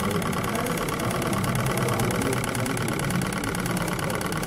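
Small model Stirling hot-air engine running steadily, its crank, pistons and flywheel giving a fast, even mechanical ticking over a steady low hum.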